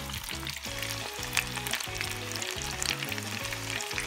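Karaage chicken pieces deep-frying in a pot of hot oil: a steady bubbling crackle with frequent sharp little pops. Background music plays underneath.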